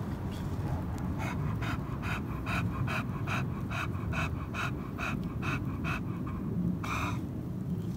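An American Bully dog panting in quick, even breaths, about four a second, followed by one louder huff near the end.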